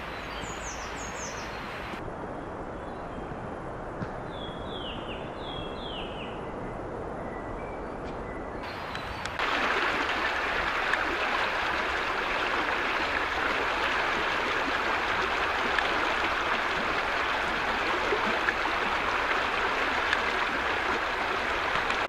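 Short descending bird calls: three quick high ones near the start and three lower ones around five seconds in, over a steady outdoor hiss. About nine seconds in, the hiss suddenly gets louder and stays steady.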